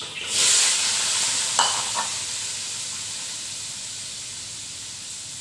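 Diced tofu tipped into hot oil in a wok, hitting it with a sudden loud sizzle that slowly settles into a steady frying hiss. Two short metal clinks sound about one and a half and two seconds in.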